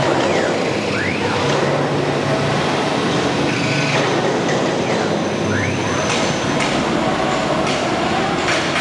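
CNC wood router with an HSD spindle running while routing an MDF board, a steady loud machine noise. The gantry drive motors whine down and back up each time the gantry reverses, twice, and a few sharp clicks come near the end.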